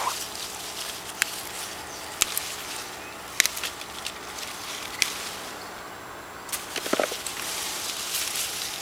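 Habanero pepper plant leaves rustling as peppers are picked by hand, with several sharp snaps and clicks spread through the stretch and a brief squeak about seven seconds in.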